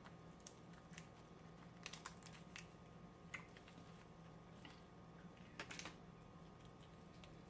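Faint, scattered clicks and crunches of someone eating fried lobster, with a cluster of louder ones about five and a half seconds in, over a low steady hum.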